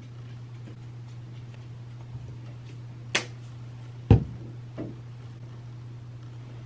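Quiet small-room tone: a steady low hum with a few short clicks, the loudest a soft thump about four seconds in.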